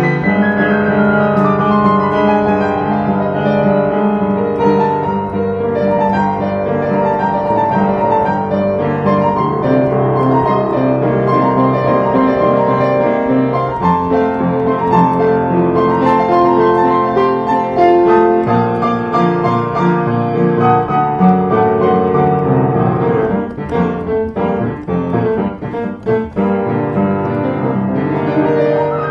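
Upright piano played with both hands, an improvised piece in 3/4 waltz time with flowing held chords. About three-quarters of the way through it breaks into a run of short, separated chords with gaps between them.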